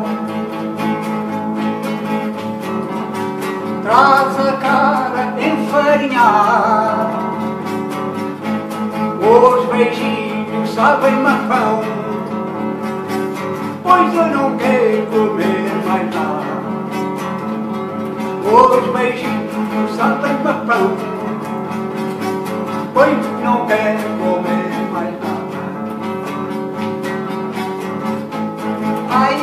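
An older man singing to his own strummed nylon-string classical guitar. His sung phrases come in every few seconds over steady strummed chords.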